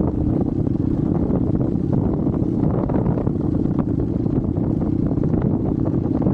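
Hero Xpulse 200's single-cylinder engine running steadily while the bike is ridden, mixed with wind rumbling on the microphone.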